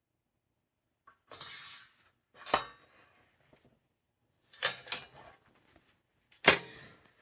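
Knocks and short clatters of hard objects being handled, a few separate bursts with sharp knocks about two and a half and six and a half seconds in.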